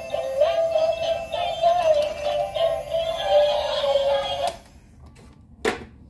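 Tinny electronic song with a synthetic singing voice, from a battery-powered light-up toy bus, cutting off abruptly partway through. A single sharp knock follows near the end.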